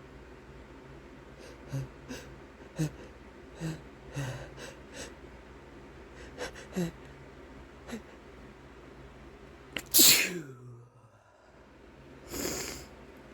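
A person taking quick sniffs and catching breaths, then a loud sneeze about ten seconds in, set off by chhinkni, a sneeze-inducing herb snuff. The sneeze trails off in a falling vocal sound, and a shorter breathy burst follows near the end.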